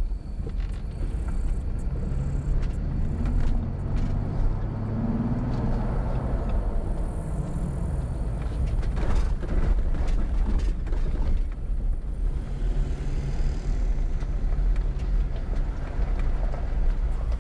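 A 2020 Jeep Gladiator Rubicon driving on a paved road: a steady engine hum with tyre and road rumble. A few brief knocks come around the middle.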